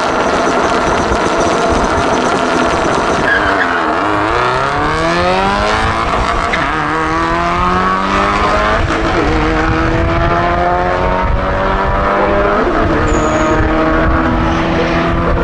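Modified Subaru Impreza drag car launching with wheelspin, its engine held at high steady revs for the first few seconds. Then the revs climb through the gears at full throttle, dropping at each of about four upshifts, as the car runs the quarter mile.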